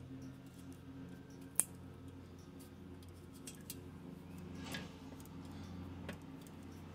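Fingers rubbing and pressing a vinyl sticker onto a gas tank: faint rubbing with a few sharp clicks, the loudest about a second and a half in, over a steady low hum.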